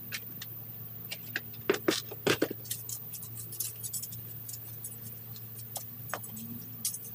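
Weeds being pulled by a gloved hand from soil: irregular scratchy rustles and small clicks, with a cluster of louder ones about two seconds in, over a steady low hum.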